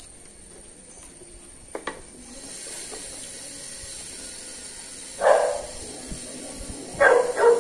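Quiet chewing and handling of fried chicken, with a short click just before two seconds. Two short, loud sharp sounds come about five and seven seconds in.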